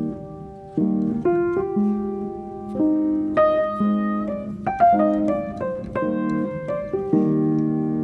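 Background piano music: a slow melody of single struck notes and chords.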